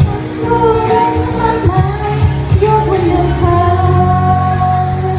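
A woman singing a Thai pop song live into a microphone over accompanying pop music, holding a long note in the second half.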